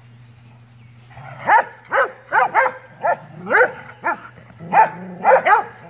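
Airedale Terriers barking in play while they roughhouse: about ten sharp barks in quick, uneven succession, starting about a second and a half in.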